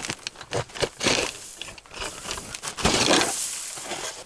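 Hand ice auger being worked in a hole through the ice and lifted out with ice chips: crunching, scraping bursts, about a second in and again near three seconds, with several sharp knocks.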